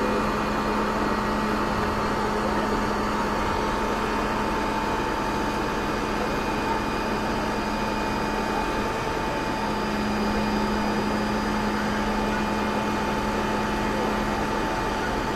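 A fire engine's aerial-ladder unit running steadily, its engine and hydraulics humming with a constant tone while the articulated 32 m turntable ladder is extended and moved. The hum dips briefly about nine seconds in and then returns.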